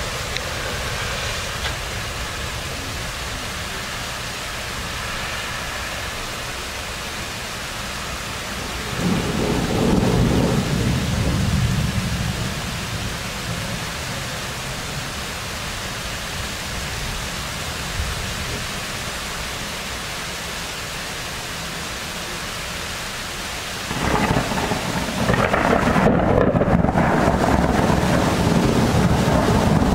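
Thunder rumbling over steady rain in a heavy thunderstorm. One rumble swells about a third of the way in and fades over a few seconds; a louder one starts suddenly near the end and keeps going.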